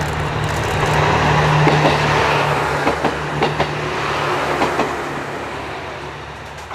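JR East HB-E300 series hybrid diesel railcar passing through a station: a steady engine hum under a rushing of wheels on rail, with several sharp clicks of the wheels over rail joints, fading away in the last couple of seconds as the train recedes.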